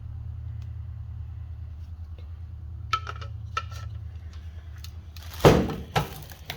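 Car speakers and their packaging being handled: a few light clicks about three seconds in, then two louder knocks near the end, the first the loudest. A steady low hum runs underneath throughout.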